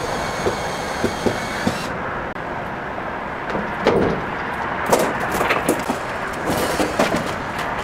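Footsteps and scattered knocks on a box truck's cargo floor and rear liftgate, over steady background noise. The loudest knock comes about four seconds in, with a cluster of knocks near the end.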